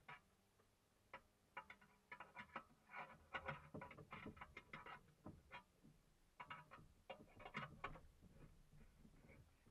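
Faint, irregular clicking with light knocks and rattles, coming in quick clusters from about a second in until near the end.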